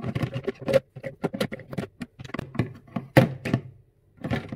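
Plastic baby bottles and breast-pump parts knocking and clattering against each other and the rack as they are fitted by hand into a bottle washer. It is a rapid run of knocks and clicks, loudest a little after three seconds in.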